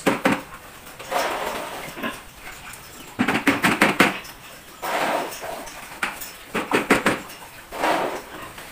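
Piglets grunting and squealing in repeated short bursts a second or so apart.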